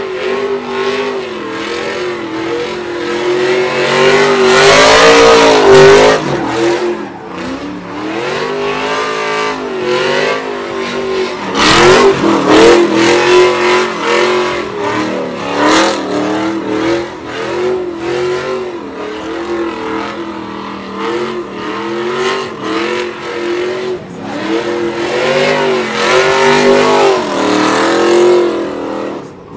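Chevrolet Silverado pickup's engine revving hard through a tire-smoking burnout and donuts, its pitch rising and falling over and over as the rear tires spin on the pavement. It is loudest about five seconds in, again about twelve seconds in, and near the end.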